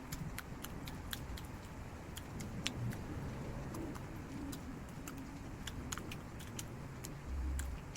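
Close-up eating sounds: chewing with irregular small, sharp mouth and utensil clicks, about two or three a second, and a brief low thump near the end.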